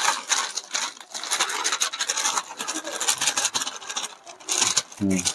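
Plastic flour packets rustling and crinkling as flour is shaken out of them into a metal bowl, a run of scratchy, irregular rubbing sounds.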